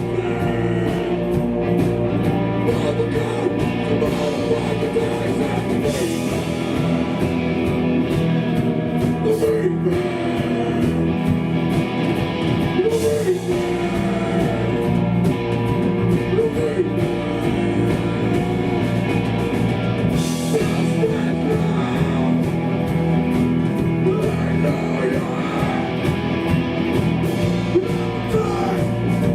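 Hardcore punk band playing live and loud: electric guitars, bass and drums, with vocals over them.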